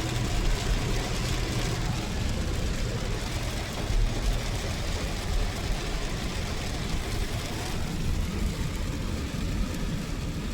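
Heavy rain falling as a steady hiss over a continuous low rumble of a car's engine and tyres.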